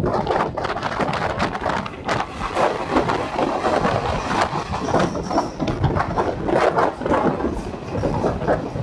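Passenger train running through a tunnel, heard from an open coach doorway: a dense, irregular clatter of wheels on the rails over a steady rushing noise.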